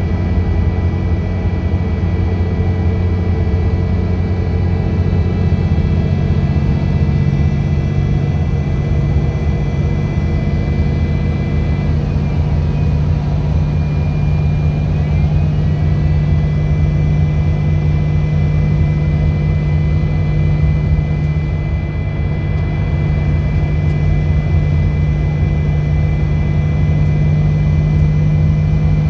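City bus driving along, heard from inside the passenger cabin: a steady engine drone with road noise and a few thin high whines. The engine note steps up in pitch about six seconds in.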